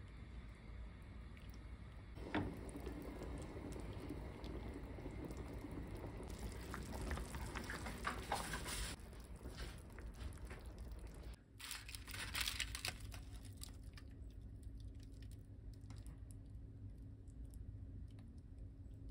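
Kitchen sounds at a stovetop pot: a knock about two seconds in, then aluminium foil crinkling in bursts as it is pressed over the pot as a drop lid. In the second half a steady low hum runs under it.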